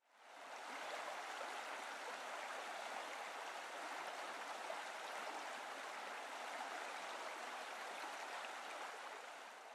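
Faint, steady rushing and bubbling of hot tub water, fading in at the start and out near the end.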